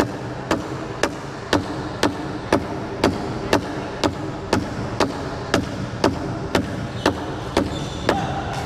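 Sharp knocks in a steady, even beat, about two a second, echoing in a large hall.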